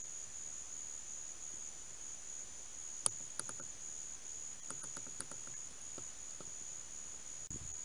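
Wild boar feeding at a bait spot: a scattered run of sharp clicks and cracks from about three to six and a half seconds in, over a steady high-pitched tone. A soft low thump comes near the end.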